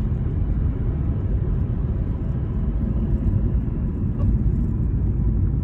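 Road and engine noise heard from inside a moving car: a steady low rumble.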